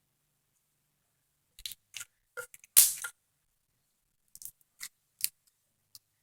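Soft purple glitter slime with foam beads being squished and stretched in the hands, giving scattered sharp clicks and pops, with the loudest pop about three seconds in.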